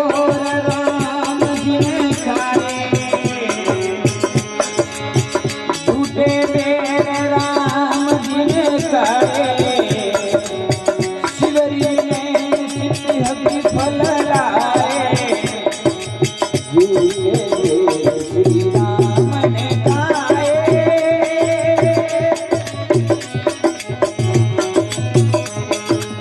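Rajasthani folk devotional music (a Marwari bhajan): long held melodic notes with some gliding, wavering passages over a steady, evenly pulsing drum beat.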